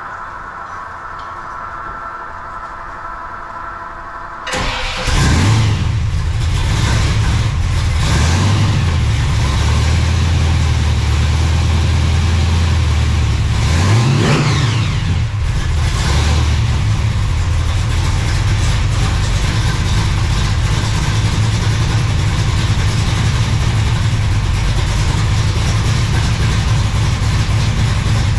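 Electric water pump whining steadily. About four and a half seconds in, the supercharged big-block V8 of a 1968 Chevelle (a stroked 454 with a 6-71 blower) catches abruptly on its first start after sitting since October. It is revved up and down a couple of times, then settles into a steady, loud idle.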